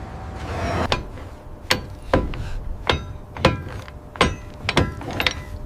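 Metal being struck: a run of sharp, irregular knocks, roughly two a second, several leaving a short ringing tone.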